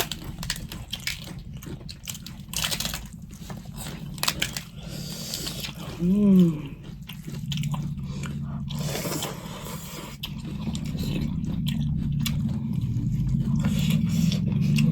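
A person chewing and biting food close to the microphone, with many short crisp crunches. A short voiced sound comes about six seconds in.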